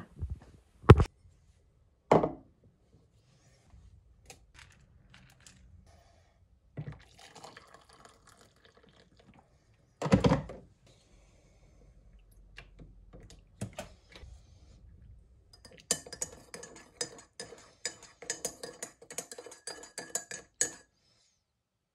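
Tea being made with mug and teaspoon: a few sharp knocks of crockery on a hard surface, a stretch of liquid pouring, and a louder knock about ten seconds in. Near the end a spoon clinks rapidly against the inside of a mug for about five seconds as it stirs.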